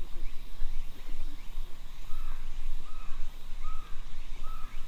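A crow cawing four times, about three-quarters of a second apart, starting about halfway through, over a steady low rumble.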